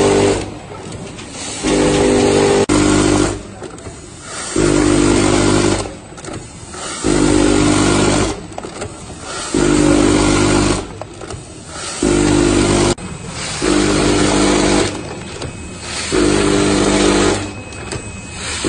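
TCLB-160A vertical form-fill-seal sugar packing machine with a measuring-cup filler running through its bagging cycle. A motor hum switches on for about a second roughly every two and a half seconds, with quieter mechanical noise between, one burst per bag.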